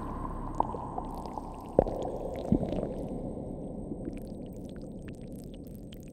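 Electroacoustic music: a low, noisy texture that slowly fades and grows duller, broken by a few sharp pops, the loudest about two seconds in, with faint scattered high ticks.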